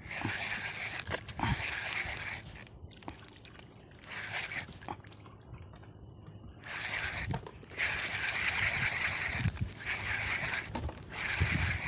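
Water sloshing and splashing against the side of a small boat on a choppy sea, coming in irregular bursts with a few low knocks.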